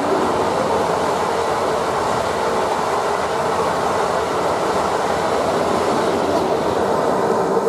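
A train running past on the track, a steady, loud noise of wheels on rail.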